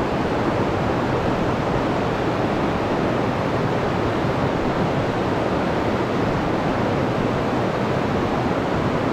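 Steady rush of water pouring over rocks in a small creek cascade.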